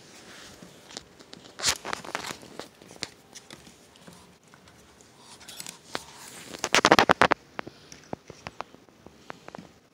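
Dog and puppies play-wrestling on a tiled floor: scuffling and scattered claw clicks, with two louder rough bursts of tussling, one about two seconds in and a louder one about seven seconds in.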